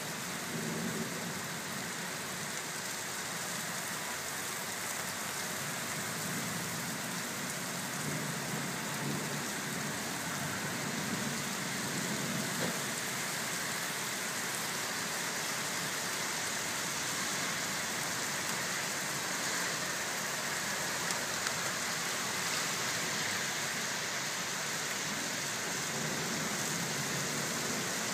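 Steady rain from a thunderstorm falling on wet pavement, an even hiss that does not let up.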